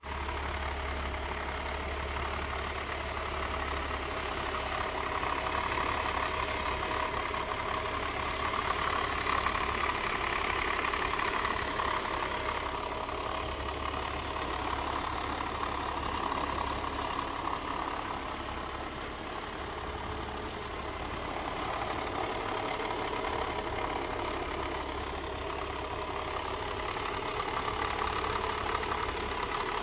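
BMW M54 3.0 straight-six engine idling with a rattle from its intake manifold, which the owner puts down to a broken DISA valve.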